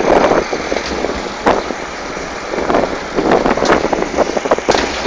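International Harvester 434 tractor engine running as it tows a loaded trailer along the road, with wind buffeting the microphone. A few sharp knocks come through, about a second and a half in and again near the end.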